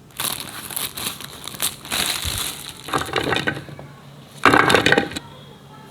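Crunching and crackling handling noise in three bursts: a long one of about two and a half seconds, then two shorter, louder ones about three and four and a half seconds in.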